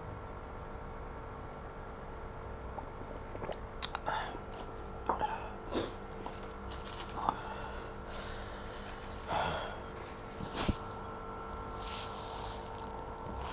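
A man sniffing and drawing short, hissing breaths over and over, a reaction to the burn of very spicy chili-laced noodles. A steady low hum runs underneath.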